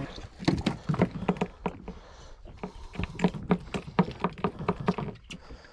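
A run of irregular knocks and taps, a few each second, some with a short low ring.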